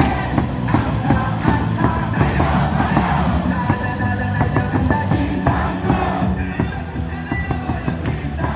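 Baseball stadium crowd singing a batter's cheer song along with amplified music over the stadium speakers, with a steady beat.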